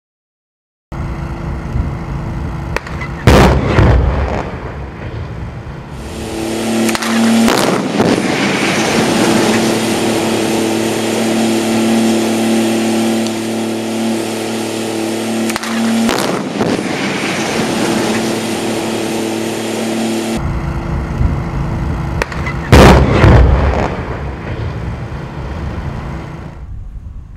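Explosive demolition charges detonating in a concrete structure: a sharp, loud bang about three seconds in and another about 23 seconds in, with smaller bangs near 8 and 16 seconds. Between them a steady humming tone runs under rumbling noise.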